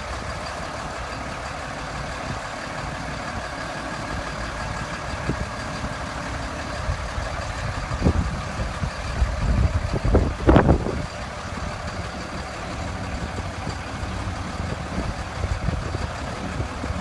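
Medium-duty truck's engine running as the truck rolls slowly down a ramp under its heavy camper box. A few loud low thumps come about halfway through, the loudest of them a little past the middle.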